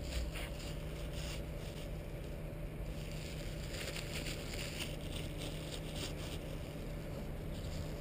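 Thin plastic dog-waste bag pulled from its dispenser and rubbed open between the fingers, crinkling most in the middle few seconds, over a steady low rumble.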